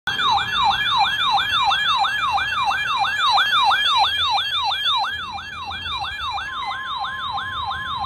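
Weather alert radio sounding its siren alarm for a severe thunderstorm warning: a loud, falling yelp repeated about three times a second. About six and a half seconds in, a steady alert tone joins underneath.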